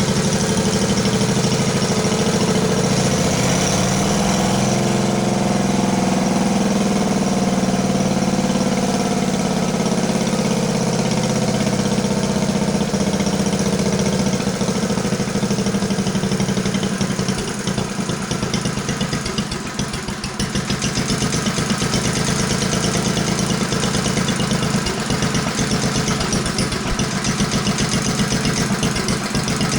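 Vintage cast-iron 9 hp Briggs & Stratton single-cylinder engine running on its rebuilt Flo-Jet carburetor while its idle is being set. A little past halfway it slows and settles into a slower idle with distinct, evenly spaced firing beats.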